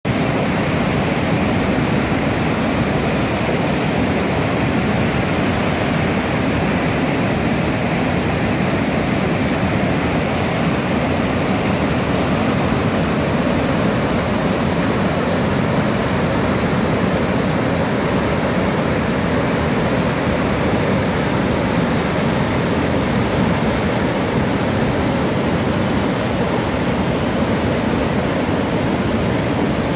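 Whitewater rapids of the Kootenai River at low water, pouring over rock ledges: a steady, loud, unbroken rushing of water.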